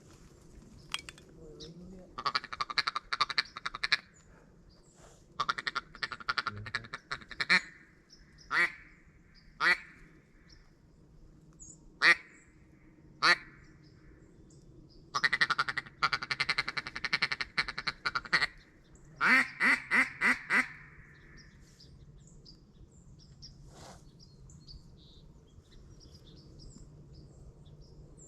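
Mallard duck call blown by a hunter close by: fast chuckling runs and single sharp quacks, ending with a string of five loud quacks, to call in ducks flying overhead.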